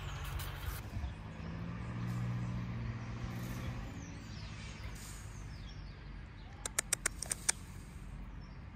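Outdoor ambience of a vehicle's low hum from the nearby street, swelling and fading in the first half, with small birds chirping. A quick run of about six sharp clicks comes about seven seconds in.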